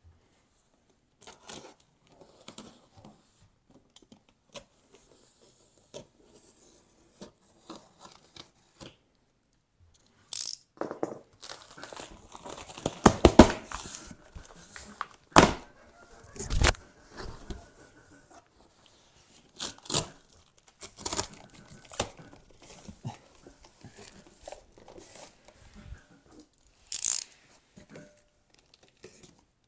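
Plastic packing tape being peeled and torn off a large cardboard box, with cardboard rustling and handling noise. It starts as faint scattered scrapes, then the tearing and rustling grow louder about ten seconds in, with a few sharp knocks.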